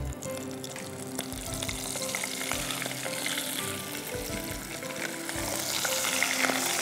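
Breadcrumb-coated coconut patties deep-frying in very hot oil in a saucepan, sizzling with small pops, the sizzle growing louder near the end.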